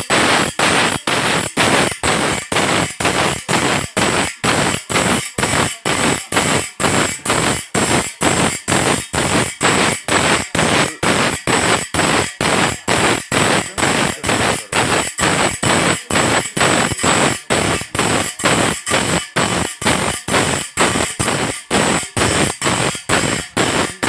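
Abrasive grinding wheel sharpening the teeth of a sawmill band-saw blade: short, coarse grinding strokes at an even rhythm of about two and a half a second, one stroke per tooth as the blade is fed past the wheel.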